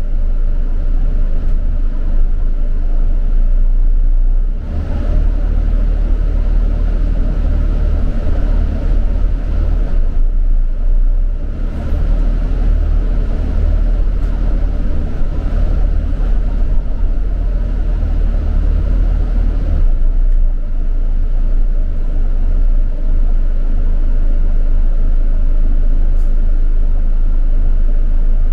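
A London bus on the move, heard from inside: a steady, deep rumble of engine and road noise, with brief dips in level a few seconds in and again about eleven seconds in.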